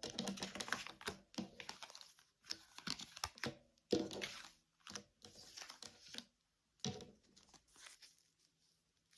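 Tarot cards being handled and shuffled: a string of irregular papery rustles and flicks with short pauses between them.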